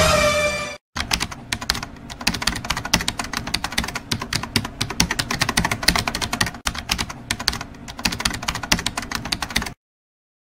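Typing sound effect: rapid, irregular key clicks, several a second, as text is typed out on screen, stopping shortly before the end.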